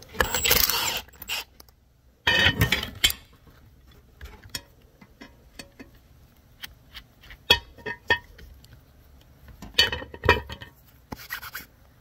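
Impact wrench running in two short bursts of about a second each, backing the bolt off a piercing connector. Then scattered small metallic clicks and rubbing as the connector is handled on the insulated cable.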